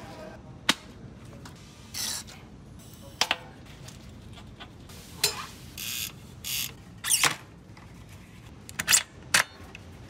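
Hands and tools working on a road bike's wheels and parts: a series of separate clicks, knocks and short scraping rustles, a second or so apart, including a cassette lockring tool being fitted and turned.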